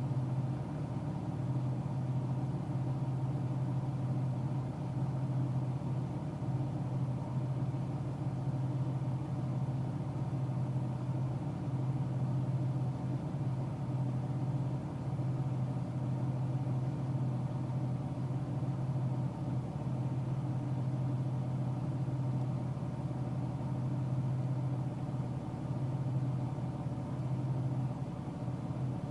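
Car cruising at a steady highway speed, heard from inside the cabin: an unchanging low hum of engine and road noise.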